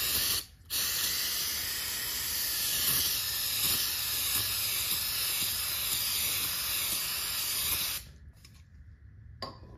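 Aerosol can of brake cleaner spraying into a brake drum: a steady hiss with a brief break about half a second in, stopping abruptly about eight seconds in.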